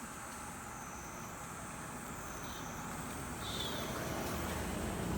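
A road vehicle approaching, its low rumble growing louder near the end, over a steady high-pitched drone, with a short chirp about midway.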